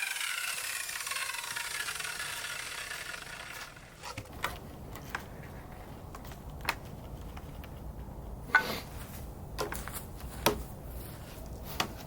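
A power tool winding down after a cut into pallet wood, its whine falling in pitch and fading out over the first few seconds. Then scattered sharp knocks and clatter of wood being handled, the loudest a little after the middle and near the end.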